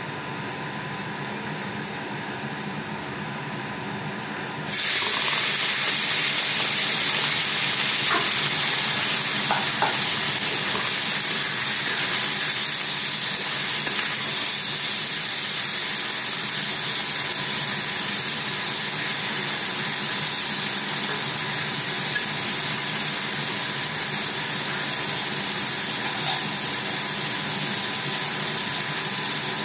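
Small prawns marinated in salt and turmeric hit hot oil in a steel wok about five seconds in, starting a loud, steady sizzle as they deep-fry that lasts to the end. Before that there is only a low steady hum.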